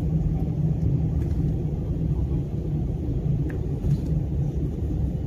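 Steady low rumble of an airliner in flight, heard from inside the cabin: engine and airflow noise.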